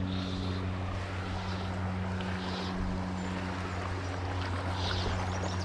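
Steady rush of flowing stream water, with a steady low hum underneath.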